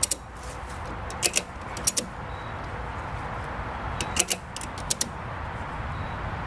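Ratchet strap being cranked as a makeshift winch under the load of a vehicle, its ratchet mechanism giving sharp metallic clicks, mostly in close pairs, every second or two as the handle is worked, over steady background noise.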